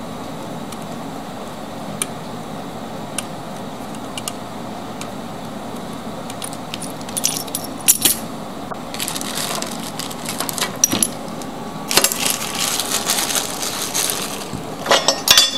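Small metal parts and tools clinking and rattling in handling, a few sharp clicks first, then bursts of jangling from about halfway in, loudest near the end, over a steady low background noise.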